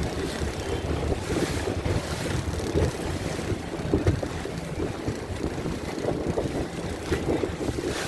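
Boat under way at sea: engine running and water rushing, with wind buffeting the microphone.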